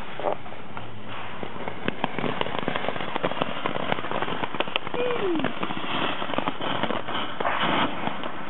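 Firecrackers popping, a rapid irregular run of sharp cracks that starts about two seconds in and keeps going.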